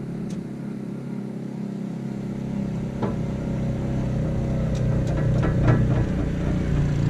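Engine of a side-by-side UTV running as it drives up a dirt track, a steady hum that grows louder as it approaches.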